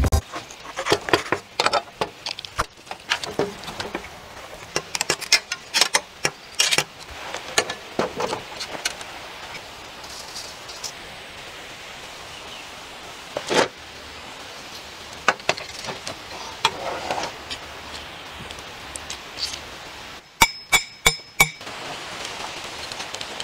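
Knife work on a raw lamb carcass on a wooden cutting board: scattered clicks, taps and knocks, with a quick run of five sharp metallic clinks about twenty seconds in. Near the end, a steady hiss from a log campfire.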